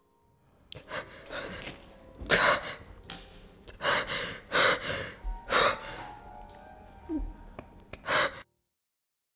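A woman sobbing in a series of loud, gasping breaths, cut off suddenly near the end.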